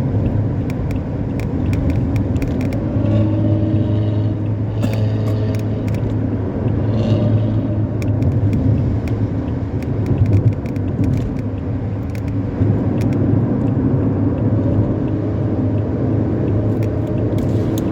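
Intercity bus's modified 'ngorok' (snoring) exhaust with a deep, steady rumble as the bus drives at speed, the pitch shifting a little now and then.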